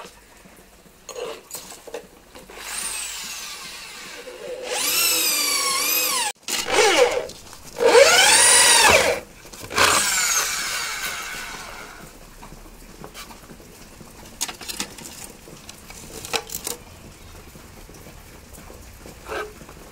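Electric hand drill boring holes into a wooden board. The motor whine rises as it spins up, sags as the bit bites, and falls as it winds down, in several short runs over the first twelve seconds or so. Light clicks and knocks follow.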